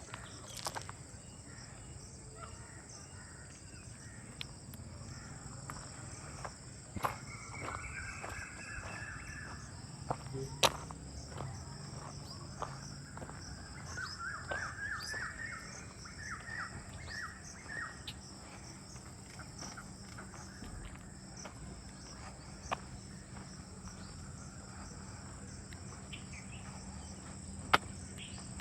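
Birds calling in runs of short repeated notes over a steady high insect drone, with a few sharp clicks.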